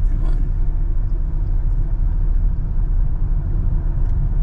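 Moving car heard from inside the cabin: a steady low rumble of engine and tyres on the road.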